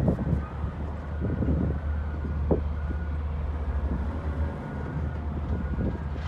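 Heavy diesel engines of Caterpillar earth-moving machines, a wheel loader and a 330C excavator, running with a steady low drone.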